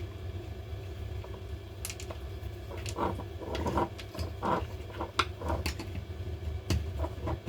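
Scattered clicks, scrapes and light knocks of hand tools prising a stuck part out of a cordless impact driver's plastic housing, coming thicker from about two seconds in.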